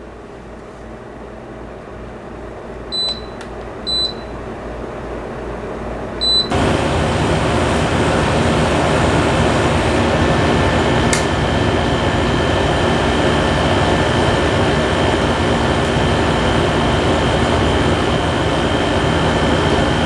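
Tosot Tranquility window air conditioner running quietly, three short control-panel beeps as it is switched over, then about six seconds in it suddenly becomes much louder as it starts running in cooling mode with the fan on low. It stays steady from then on, with a faint whine on top of the air noise.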